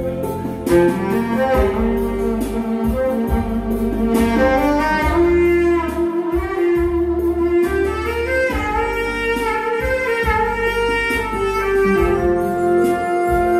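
Saxophone playing a lyrical melody live, with electronic keyboard accompaniment giving a bass line and a steady beat.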